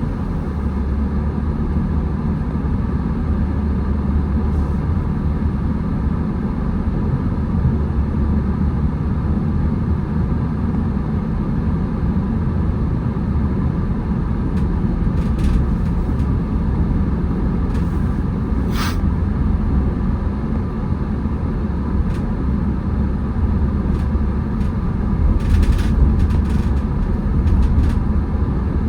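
A car driving on the road: a steady low rumble of engine and tyre noise. A brief sharp click cuts through it about two-thirds of the way in.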